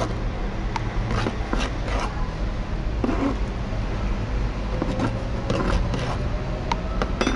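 A metal spoon scraping and tapping through damp coconut coir on a tabletop: a handful of short, soft scrapes and clicks, over a steady low background rumble.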